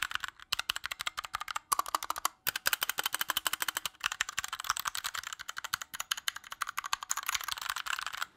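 Fast typing on a 60% Glorious Gaming mechanical keyboard, fitted with what the owner takes for Kailh Pro Purple switches, with unlubed switches and stabilizers: a dense clatter of key clicks broken by a few brief pauses.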